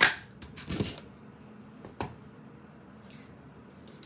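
Handheld paper craft punch snapping through black cardstock with one sharp click, followed by a short rustle of card and a lighter tap about two seconds in.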